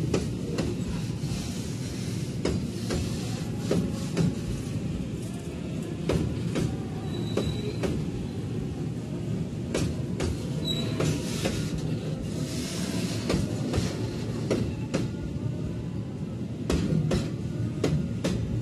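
Container freight train's flat wagons rolling past: a steady low rumble with sharp, irregularly spaced wheel clacks on the rails.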